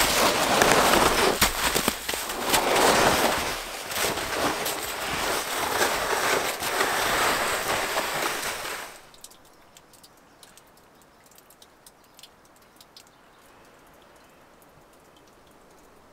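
Footsteps sloshing and splashing through waterlogged, thawing snow and meltwater, deep enough to fill the boots, in uneven heavy surges. After about nine seconds the sloshing stops and it goes much quieter, with only faint scattered ticks.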